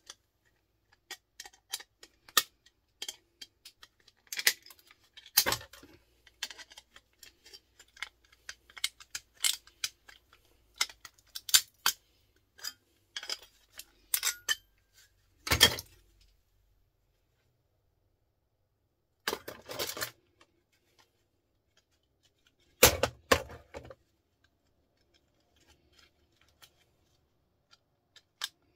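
Plastic electrical switch plates being pried and cut apart with pliers: irregular sharp clicks, snaps and clatter of plastic and small metal parts, in dense bursts through the first half and two louder clusters later, with quiet stretches between.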